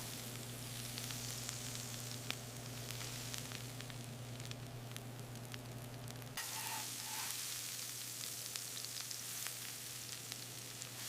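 Hot hamburger patties sizzling, an even hiss with scattered small crackles and clicks, over a steady low machine hum. The sound changes abruptly about six seconds in.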